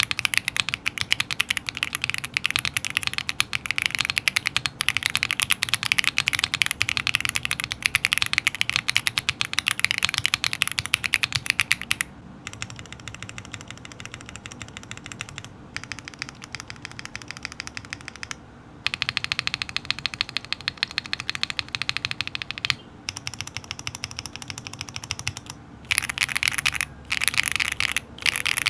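Fast, continuous typing on a Dark Alien R65 aluminum keyboard, a dense patter of key clicks. It is loud for about the first twelve seconds, turns softer with a few short pauses in the middle, and grows louder again near the end.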